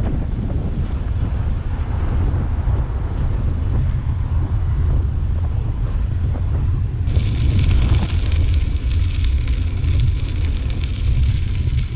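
Wind rumbling on the microphone of a camera on a moving bicycle, with tyre noise underneath. About seven seconds in the sound changes abruptly and a steady hiss joins, as the tyres run onto a gravel towpath.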